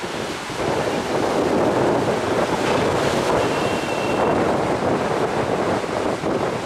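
Wind buffeting the microphone over the steady wash of sea waves, getting louder about half a second in.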